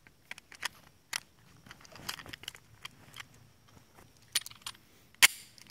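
Glock 26 pistol being reloaded one-handed: a run of small clicks and rattles of magazine and gun handling, with one loud, sharp snap about five seconds in.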